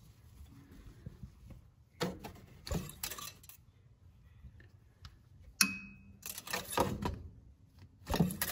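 Scattered light clicks, knocks and rattles of hands handling parts at the engine's oil filler, with a louder click near the end as the dipstick handle is gripped to pull it out.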